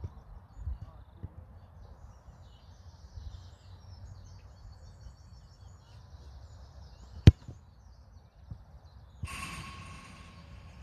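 A football kicked with one sharp thud. About two seconds later there is a short ringing clang that lasts about a second and a half. Low wind rumble and faint birdsong run underneath.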